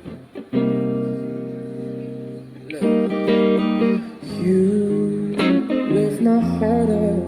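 A pop song's guitar-led cover playing: strummed guitar chords over a bass line, changing chord partway through, with a male voice starting to sing about halfway in.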